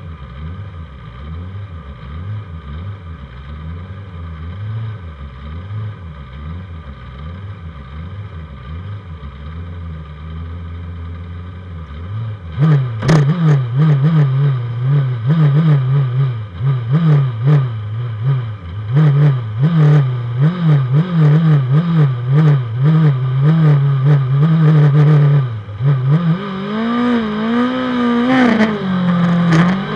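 Race motorcycle engines on a starting grid, led by the Honda 600 that carries the camera. They idle unevenly at first, then from about twelve seconds in are held at high revs with a wavering pitch, ready for the start, with sharp crackles around them. Near the end the revs climb, dip and climb again.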